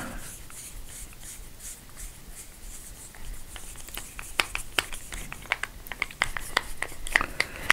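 A screwdriver driving the screw back into the red plastic handle of a PVC gate valve: a run of small, irregular clicks and ticks of metal on plastic that starts about three seconds in and grows denser.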